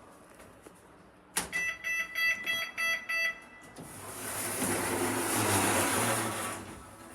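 Passenger lift arriving: a click, then a run of short electronic beeps for about two seconds, then the lift doors sliding for two to three seconds.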